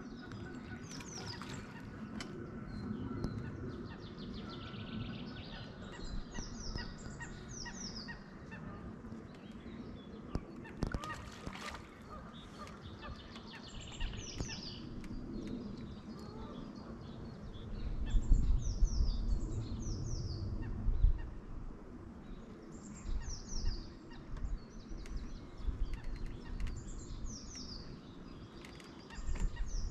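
Birds calling by a lake: geese calling, and groups of three or four quick, high, falling calls repeating every few seconds. Low rumbles come and go, strongest a little past the middle.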